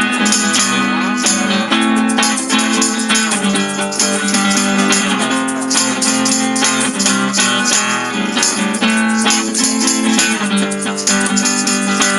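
Live acoustic rock instrumental break: strummed acoustic guitar with a shaker keeping the beat, no singing.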